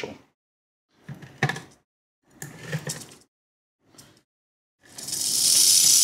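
A few brief handling noises, then about five seconds in a Mojave rattlesnake starts rattling: a steady, high hiss-like buzz that holds at an even level.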